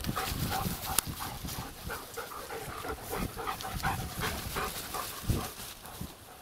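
A dog panting in quick, short breaths, with one sharp click about a second in.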